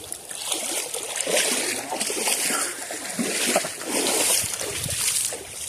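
River water splashing and sloshing in uneven surges as people move about in it.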